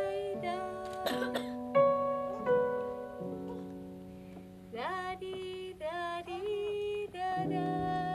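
Live keyboard music of held notes and chords, with a few notes that slide upward about halfway through. A brief sharp noise comes about a second in.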